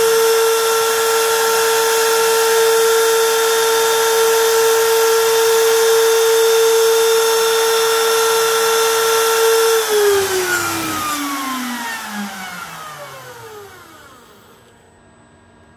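High-speed milling spindle on a DIY CNC lathe running at a steady high whine with a hiss underneath. About two-thirds of the way through it is switched off, and its pitch falls steadily as it spins down; the hiss cuts off shortly before the end.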